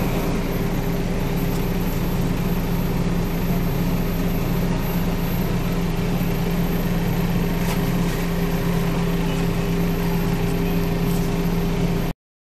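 Volvo Olympian double-decker bus's diesel engine idling with a steady, even hum, heard from inside the lower deck near the driver's cab. A few faint ticks sound over it.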